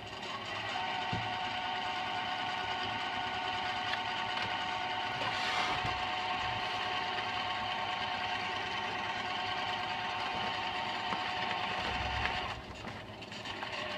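Computer speakers giving off a strange steady mechanical noise with nothing playing, like a car engine trying to turn over or a sewing machine running, with a couple of constant tones through it. The noise dips briefly near the end.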